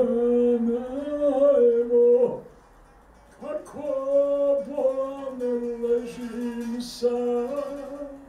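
A man singing a slow song in long held, wavering notes, breaking off for about a second a little over two seconds in, then going on.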